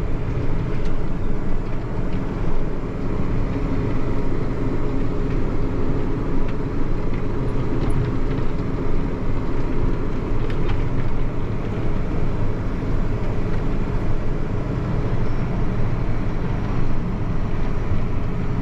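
Combine harvester running steadily with an even engine hum and a constant machine drone.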